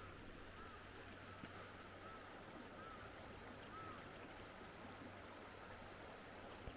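Faint steady rush of a shallow stream running over stones. For the first few seconds a short rising-and-falling chirp repeats about every three-quarters of a second.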